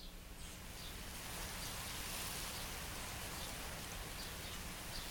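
Outdoor pasture ambience fading in from silence: a steady hiss with faint high chirps repeating every half second or so.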